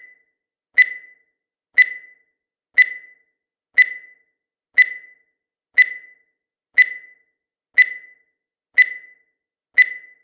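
Countdown timer sound effect: a short, high beep that fades quickly, repeated evenly once a second, about ten times.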